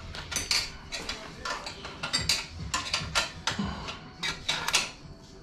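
Metal hand tools clicking and clinking in short, irregular bursts of sharp clicks while bolts are worked loose on the engine.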